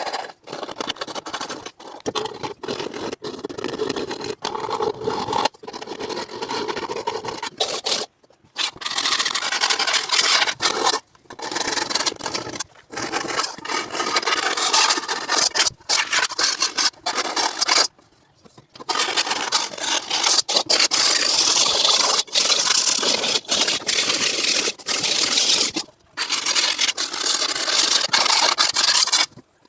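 A hacksaw blade bent into a ring, scraping burnt-on crust off a wok: continuous rasping strokes, broken by a few short pauses.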